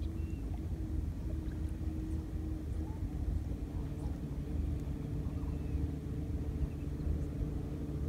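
A steady low engine hum over a constant rumble; the hum's pitch shifts slightly about three and a half seconds in.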